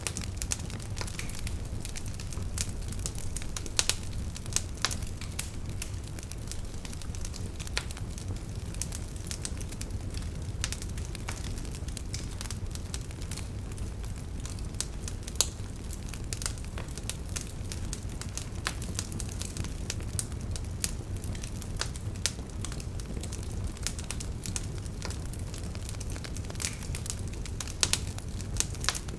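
A fire crackling: irregular sharp pops and snaps over a steady low rumble.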